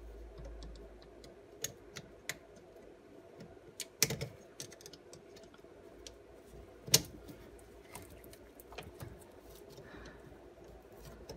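Screwdriver clicking and tapping against the plastic connector block of a washing machine motor while it is pried off: scattered small clicks and snaps, the sharpest about four and seven seconds in, over a faint steady hum.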